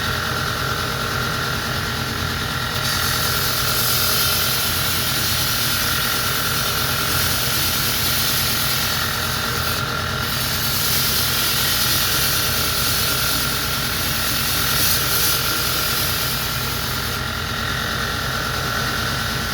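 Belt grinder running steadily, with a steel bill hook blade ground against its 80-grit abrasive belt: a loud grinding hiss from about three seconds in until near the end, broken briefly about halfway.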